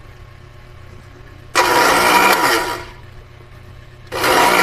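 250 W electric blender motor switched on in two short pulses of about a second each, each spinning up quickly and winding down.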